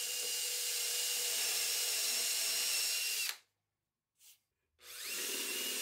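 Handheld electric drill boring handle holes through a plywood drawer front, its motor running at a steady whine. It stops about three seconds in, and after a second and a half of quiet it spins up again.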